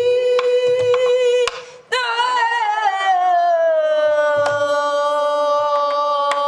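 A woman singing Korean gueum (wordless pansori-style vocables) in long held notes. One note is sustained until about a second and a half in. After a short break, a new note starts high with a waver, glides down and is held. A few strokes on a buk barrel drum mark the rhythm under the voice.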